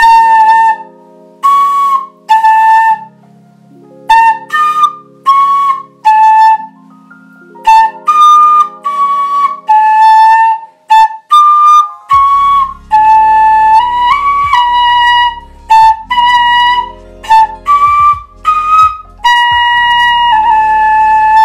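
Handmade clay flute playing a run of short, fairly high notes. Some notes slide or bend between pitches where a finger half-covers a hole to shift the tone.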